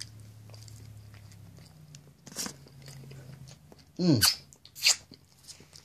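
A man chewing a bite of pizza, with soft crunching mouth noises. About four seconds in he gives a brief voiced sound that falls in pitch, followed by a short sharp noise.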